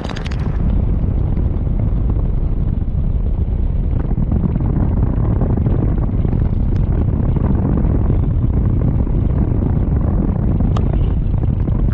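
Honda ADV 160 scooter riding at about 45 km/h on a wet road: a steady rumble of wind on the helmet-camera microphone mixed with road and engine noise.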